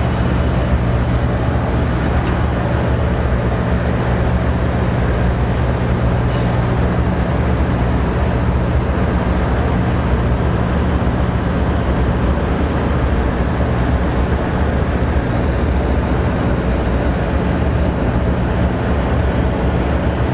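Steady low drone of an idling engine, unchanging throughout, with a single short sharp click about six seconds in.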